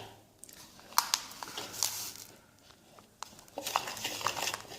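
A spoon clinking against a container as more sugar is spooned in: a few separate taps, then quicker clinking and scraping in the last second or so.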